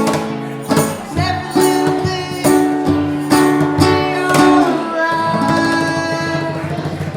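Live acoustic string instruments strumming the closing chords of a reggae song, a strum about every half second to a second. About five seconds in they settle on a final held chord that rings out.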